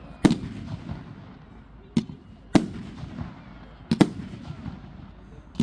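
Fireworks display: aerial shells bursting overhead as a series of sharp bangs, about five in a few seconds, each followed by a rolling rumble.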